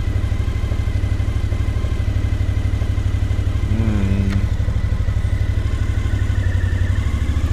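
Suzuki V-Strom DL1000's V-twin engine running steadily at low revs as the bike is turned slowly on gravel.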